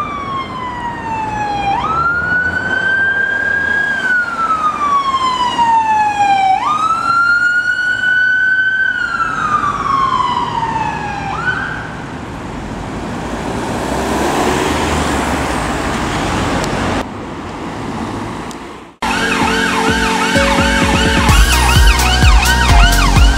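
Ambulance siren on a slow wail: each sweep falls over a few seconds and then jumps back up. It stops about halfway through, leaving the van's engine and tyre noise as it goes by. Near the end, a faster yelping siren comes in over music.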